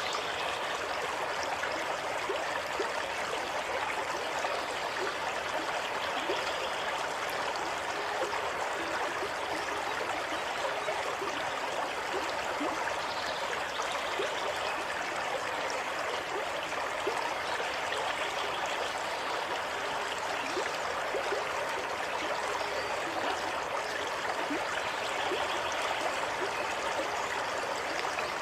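Water running steadily over rocks in a stream, with a continuous rush and small splashing trickles.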